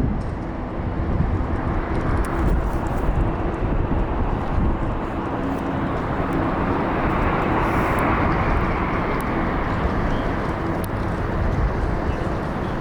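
Jet airliner engines heard in the open, a steady rushing noise with a faint drone beneath it, swelling a little past the middle.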